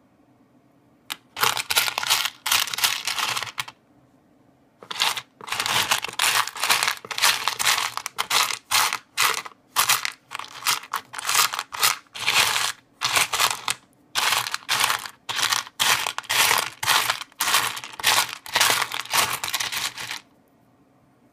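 Rough opal pebbles clattering and grinding against each other as a hand rakes through a tray of them, in quick repeated bursts. It starts about a second in, pauses briefly around the fourth second, then keeps going until near the end.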